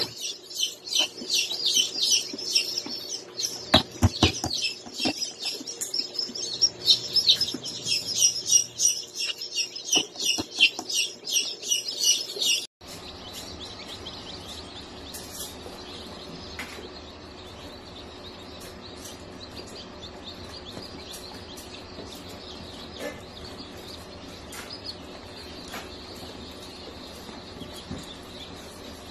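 A crowd of newly hatched chicken chicks peeping loudly and continuously in high, rapid chirps. About 13 seconds in, the sound cuts to a quieter, steady hiss with only faint, scattered peeps.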